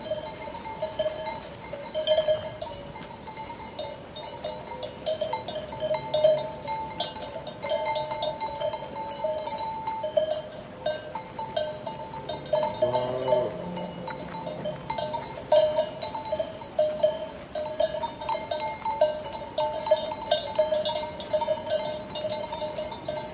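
Sheep bells clanking and ringing irregularly. About halfway through, a sheep bleats once.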